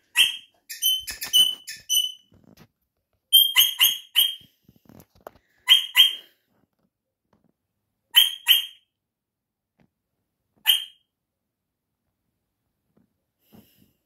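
Parrot calling: sharp, high, shrill calls in quick runs of two to five, with the gaps growing longer until a last single call about eleven seconds in. It is answering another male parrot calling outside.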